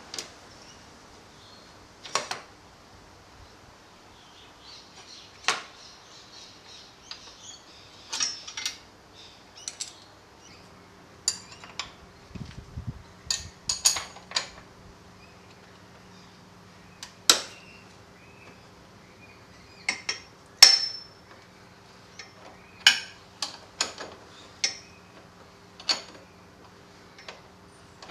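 Scattered sharp metallic clinks and taps of hand tools and metal parts being handled and set down, irregular throughout. A low steady hum joins about ten seconds in.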